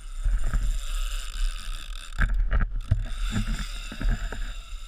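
Motorboat running at speed: a steady low engine rumble with a high whine, wind buffeting the microphone and irregular thumps as the hull hits the chop.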